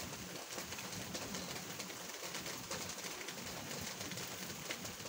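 Steady rain falling, a dense patter of drops hitting surfaces.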